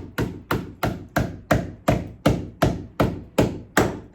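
Hammer driving a nail, a steady run of sharp blows at about three a second, fixing a cavity closer in place.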